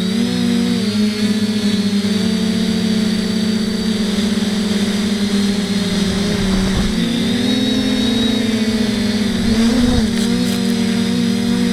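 FPV quadcopter's electric motors and propellers whining steadily, several close tones with their pitch wavering up and down.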